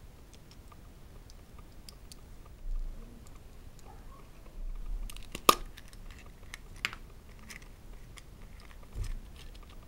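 Small plastic toys handled on a wooden table: scattered light clicks and taps from a plastic toy motorbike and a plastic Kinder Surprise capsule, with one sharp click about halfway through and a few soft bumps.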